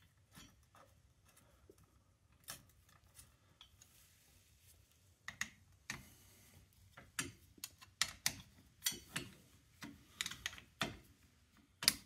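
Light metallic clicks and taps of a screwdriver and brake parts against a Polaris Sportsman 570 ATV brake caliper as it is worked by hand, sparse at first and coming more often from about five seconds in.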